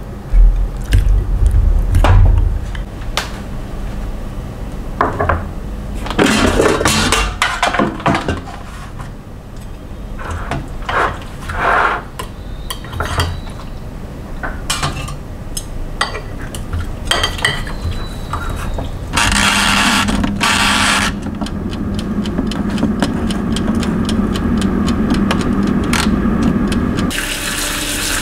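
Kitchen handling sounds: sauce-coated pork pieces lifted with chopsticks and dropped into a metal air fryer basket, giving scattered clicks, light knocks and short wet rustles. A steady hum runs for several seconds in the later part. Near the end a tap starts running water into a plastic bowl of vegetables.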